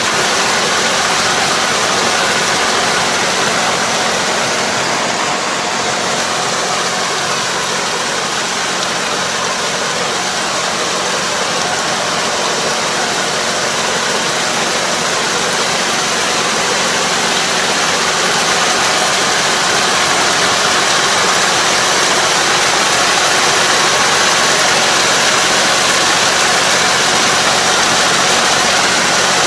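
Diesel engine of a Kubota KL270 half-crawler tractor running steadily under load as it pulls a Kobashi 3 m puddling harrow through a flooded rice paddy, the harrow churning the muddy water.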